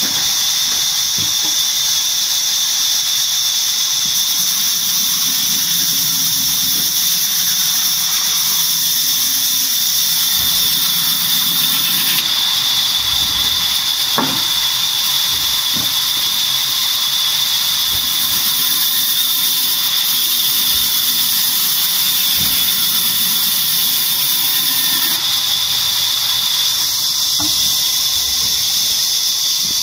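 Large vertical band saw running, its blade giving a steady high-pitched squealing whine, with a few faint knocks of wood being handled on the saw table.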